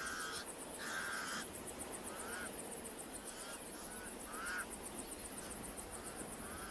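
Pied crows calling: a string of about eight short, harsh caws, the first two longer. Behind them insects tick steadily and fast.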